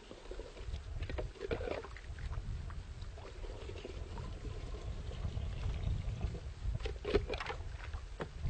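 Water being scooped and poured into a plastic can, splashing in short clusters about a second in and again around seven seconds, over a low rumble of wind on the microphone.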